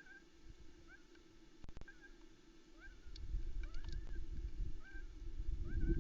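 A short, squeaky rising call repeats about once a second from an osprey nest, which the watcher wonders is an osprey chick snoring under its brooding mother. A low rumble comes in about halfway through.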